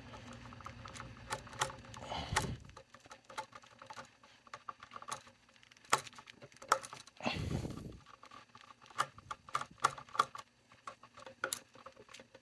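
Screwdriver working the brass and silver terminal screws of an electrical outlet: irregular small metallic clicks, ticks and scrapes as the screws are loosened to free the wires, with a couple of brief soft rustling handling sounds.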